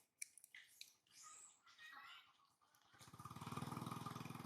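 Small motorcycle engine passing, its rapid even pulsing building up about three seconds in and still loud at the end, after a few faint clicks.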